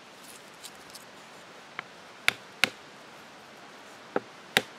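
An awl being tapped through leather into a wooden log to punch stitching holes: a few sharp, short knocks, the loudest coming in two pairs about a third of a second apart.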